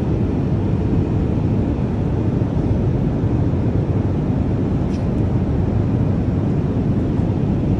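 Steady low rumble of a jet airliner in flight, engine and airflow noise heard from inside the passenger cabin.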